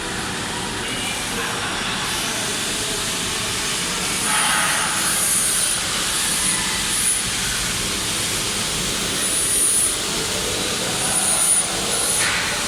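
Steady industrial machinery noise with short, high hissing bursts now and then.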